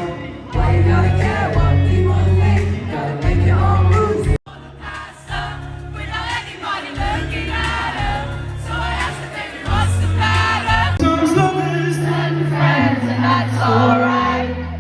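Live band music with singing, loud in the room; the sound cuts out abruptly for an instant about four seconds in, then the song carries on.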